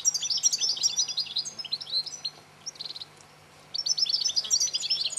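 European goldfinch song: rapid, liquid twittering phrases with a short buzzy note about three seconds in, then a brief pause before the twittering starts again.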